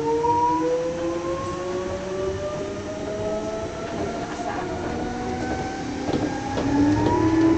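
Meitetsu 6800 series electric train's traction motors and gears whining, several tones climbing steadily in pitch as the train accelerates, with a new rising tone coming in near the end. Faint clicks from the wheels are heard under it. The whine is strong enough that the uploader calls it almost abnormal.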